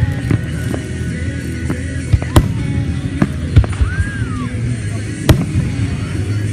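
Fireworks going off: three loud bangs a second or two apart, with smaller pops between them, over music.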